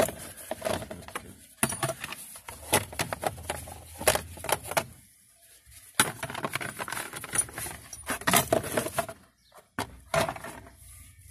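Irregular clicking, rattling and knocking of hand tools and loose plastic dashboard trim being handled, in uneven clusters with a short lull about halfway through.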